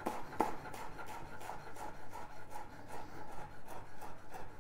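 Chef's knife chopping fresh parsley on a bamboo cutting board: a steady run of soft knocks and blade scrapes, about three a second.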